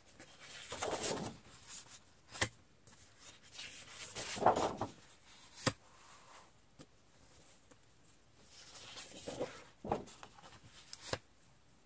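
Sheets of patterned paper being shuffled, slid and laid down one on another: several brief rustles and swishes, with a few sharp ticks in between.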